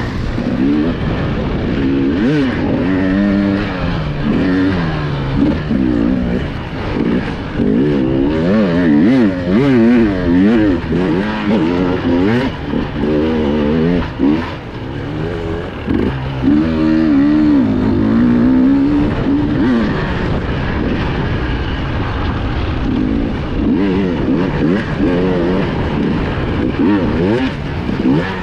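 Enduro motorcycle engine heard on board, revving up and down continuously as the throttle is opened and closed, its pitch rising and falling every second or two.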